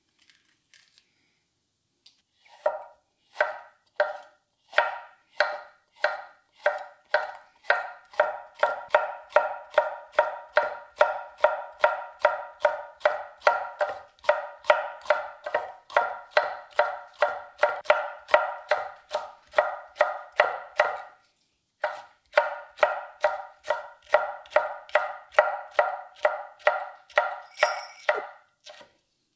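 A gyuto slicing a green bell pepper into strips on an end-grain wooden cutting board: a run of knife strokes tapping through onto the board, slow at first, then a steady rhythm of about three a second, with a brief pause about two-thirds of the way through.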